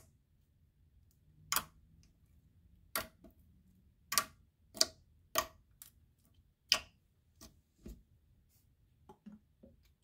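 Fingers poking and pressing a thick slime on a tabletop, giving about ten short, sharp pops at uneven intervals, with a few fainter ones near the end.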